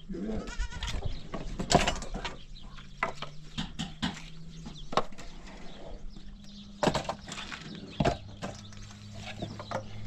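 Goats or sheep bleating in short calls while being herded into a low shelter, with several sharp knocks and scuffs from handling them.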